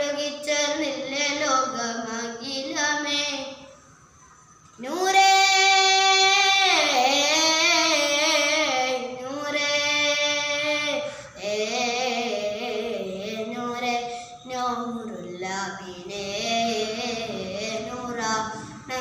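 A boy singing a madh, an Islamic devotional song of praise, solo. There is a short pause about four seconds in, then a long held high note.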